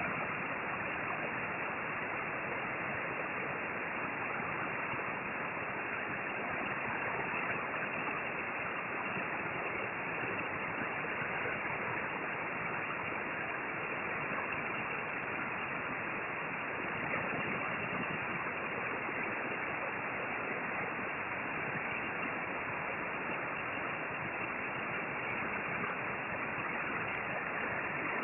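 Hot-air rework station blowing a steady hiss of hot air onto a circuit board to reflow a small surface-mount chip; its airflow is set a little high.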